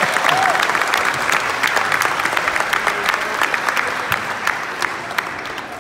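Audience applauding, the clapping dying down over the last couple of seconds.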